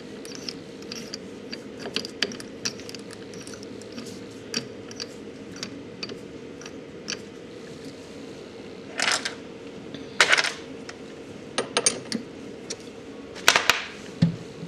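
Small metallic clicks and clinks of a milling machine's tooling being handled as a tiny end mill is changed and fitted into the spindle, with several louder clusters of clinks in the second half, over a faint steady hum.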